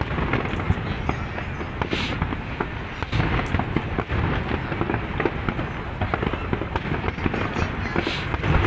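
Fireworks display going off: a dense, continuous run of bangs and crackling pops from bursting shells.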